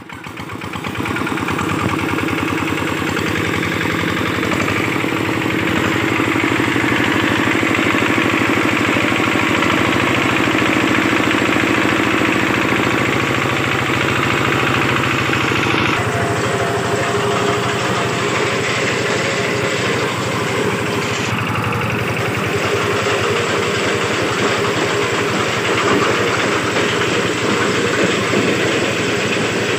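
A hand tractor's single-cylinder diesel engine running steadily, powering a home-built rice harvester.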